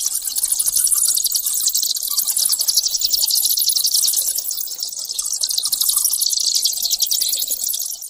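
A colony of bats squeaking and chittering: a dense, high-pitched stream of very rapid clicks and squeaks that dips slightly in level about five seconds in.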